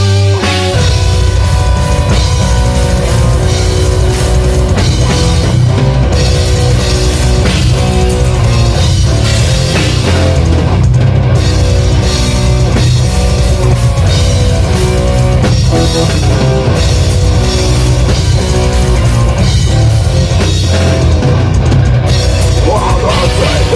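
Black metal band playing at full volume, with distorted electric guitars, bass and a drum kit going steadily.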